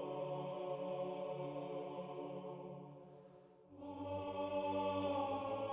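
Droning, chant-like music of long held notes. One chord fades away about three seconds in, and a new chord with a lower bottom note starts just before four seconds.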